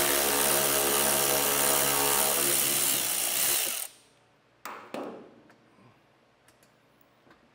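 Cordless power ratchet running steadily for about four seconds, backing out an 8mm screw that holds the front rock guard, then stopping suddenly. A couple of brief knocks follow about a second later.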